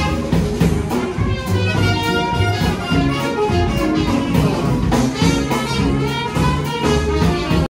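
Small live jazz band playing: brass horns over upright bass and a drum kit, with a steady beat. The music cuts off suddenly at the very end.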